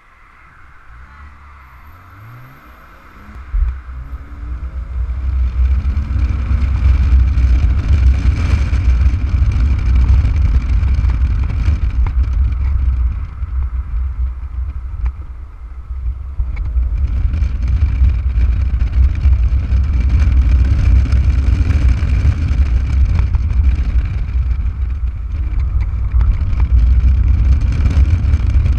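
Porsche Boxster S (987) 3.2-litre flat-six pulling away from low speed, its pitch rising as it accelerates, then running hard under load. Heavy wind rush comes in from the open cockpit. The engine eases off for a few seconds in the middle, then pulls hard again.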